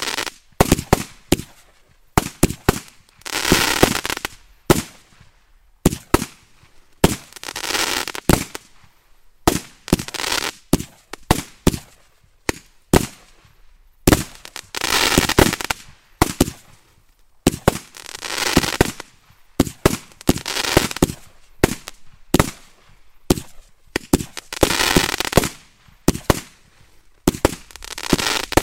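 Kimbolton Accolade 150-shot 20 mm firework barrage cake firing: a fast run of sharp bangs, about two a second, with a spell of crackling about a second long every couple of seconds as the crackling-flower shells break.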